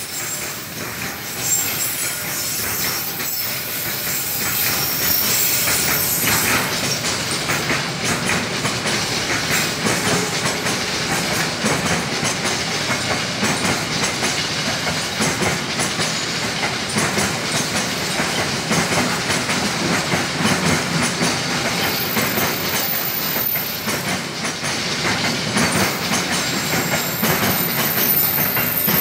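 Freight train of container flatcars, many of them empty, rolling steadily past at close range: a continuous rumble of steel wheels on rail with a clickety-clack of wheels over rail joints.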